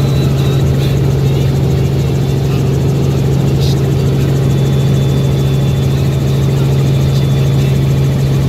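Helicopter engine and rotors droning steadily in flight, heard from inside the cabin as a loud, even low hum.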